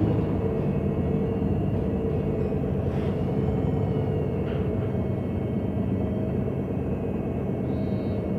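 MAN NG 273 T4 articulated bus with an LPG engine running in a steady low drone, heard from inside the bus.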